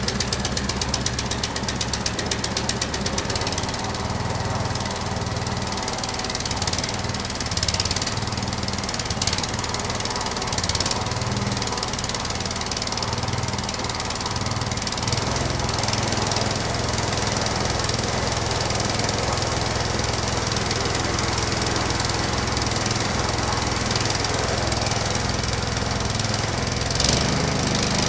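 Hecht 6208 petrol wood chipper running at a steady speed. There is a fast rattle in the first few seconds and a few short louder bursts now and then.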